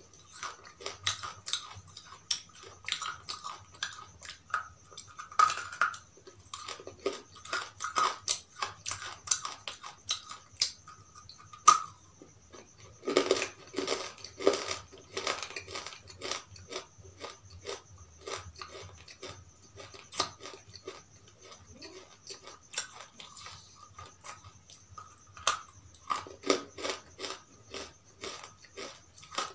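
Close-up mouth sounds of a person biting and chewing a hard, crumbly lump, a rapid run of short crisp crunches. The crunching is loudest in two stretches, about halfway through and near the end. A faint steady high whine sits underneath.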